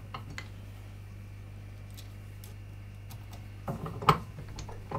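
Light scattered clicks, then a cluster of sharper metallic clicks and knocks about four seconds in and another near the end: small metal turrets and a hand arbor press being handled, over a steady low hum.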